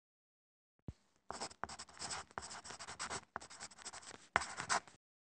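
A pen scratching across paper in a rapid run of short, irregular writing strokes, preceded by a single light click.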